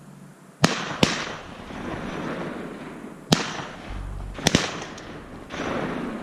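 Shotgun volley from several waterfowl hunters: five shots in about four seconds, the last two almost on top of each other, each trailing off in a rolling echo. A softer rush of noise follows near the end.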